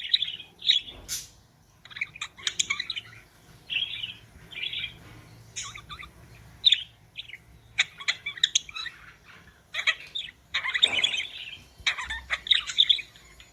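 Budgerigars chirping and chattering in short bursts, one after another, with a few sharp clicks among them.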